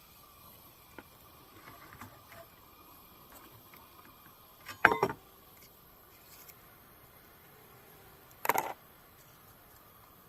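Two short clattering knocks, about three and a half seconds apart, from camp cooking gear being handled, over a faint steady background.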